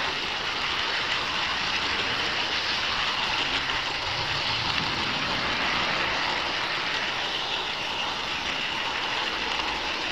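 HO-scale model train running along its track, heard from a camera riding on the train: a steady rolling noise of wheels on rail.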